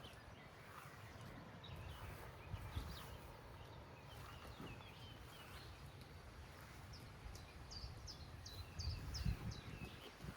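Small birds chirping in short, high notes, with a quick run of chirps from about seven seconds in. Low rumbling underneath, loudest a little after nine seconds.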